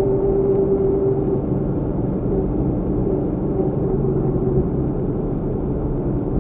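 Steady engine and road noise of a car driving, with a humming tone that drops a little in pitch about a second in.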